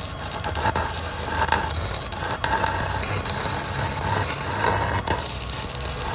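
Electric arc of a handheld mini stick welder, its rod electrode burning against a steel bar, giving a steady crackling hiss.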